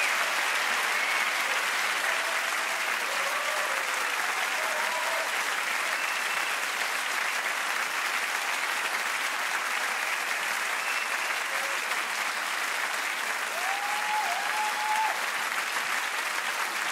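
Theatre audience applauding steadily, a dense, even clapping that holds its level.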